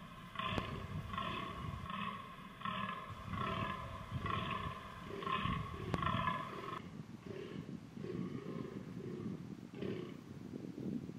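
Fallow deer buck groaning in the rut: a rapid run of deep, belching calls, roughly one every half second, then fainter, more spaced groans after about seven seconds.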